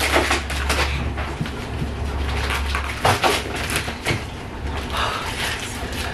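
Duct tape being ripped and peeled off clothing in short tearing, crackling bursts, strongest just after the start and about three seconds in. A low steady hum runs under the first half.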